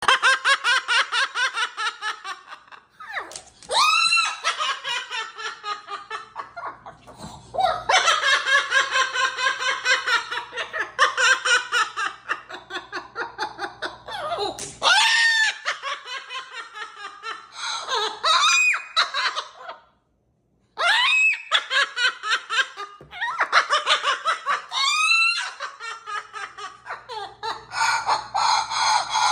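A parrot mimicking human laughter: long runs of quick 'ha-ha-ha' that fade away, broken every few seconds by a short, sharply rising call.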